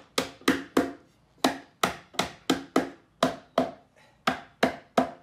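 Repeated sharp knocks on a maple Windsor rocker as its spindles are driven down to seat them in their sockets during dry assembly: about a dozen blows, roughly three a second, with two brief pauses.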